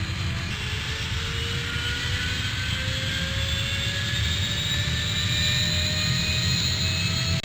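Airplane flying overhead: a steady low rumble with an engine whine that rises slowly in pitch and grows a little louder.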